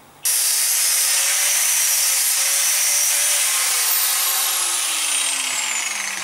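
Angle grinder with a flap disc starting abruptly about a quarter of a second in and grinding steel, taking rust and paint off an adjustable wrench. It runs loud and steady, with a faint whine that sinks in pitch over the last couple of seconds.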